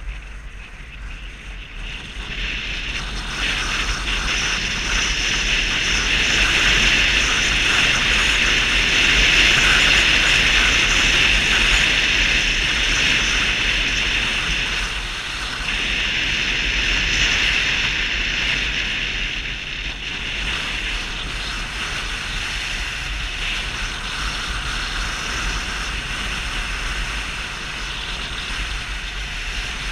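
Wind rushing over the microphone of a camera on a Vespa 250 GTS scooter riding at road speed, building up over the first few seconds and then holding steady.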